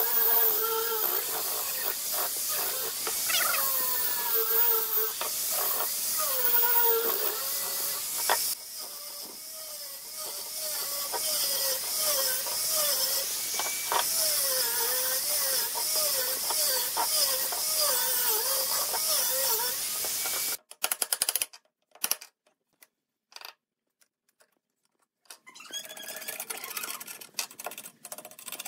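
Angle grinder fitted with a foam-backed sanding disc, running against wood as it sands a box, a steady hiss with a wavering motor pitch. The tool stops about twenty seconds in. A few light clicks and clatters follow near the end.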